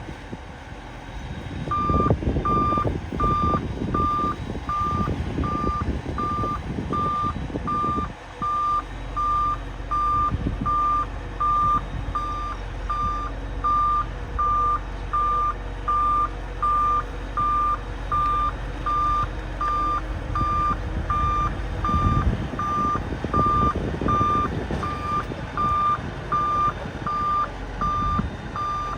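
Bulldozer's reversing alarm beeping evenly, about one and a half beeps a second, starting about two seconds in, over its running engine, which loads up with louder rumbling in the first several seconds and again about three-quarters of the way through.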